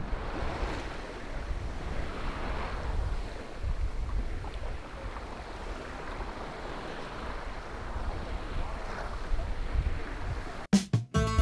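Water rushing and splashing along the hull of an Ocean Star 56 sailing yacht under sail, the swish rising and falling every couple of seconds, with wind buffeting the microphone. Plucked-string music starts near the end.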